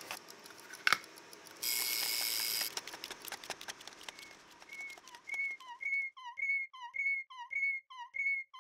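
Mechanical wind-up kitchen timer ticking, with its bell ringing for about a second near the two-second mark. From about halfway through, a run of short whistle-like chirps, about two a second, getting louder.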